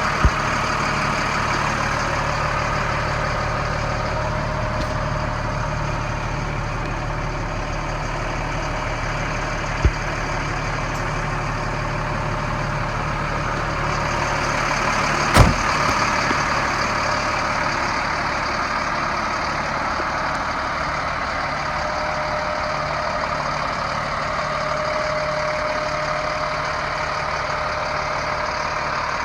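M1078 LMTV cargo truck's diesel engine running steadily at idle. A sharp knock sounds about fifteen seconds in, with two smaller clicks near the start and about ten seconds in.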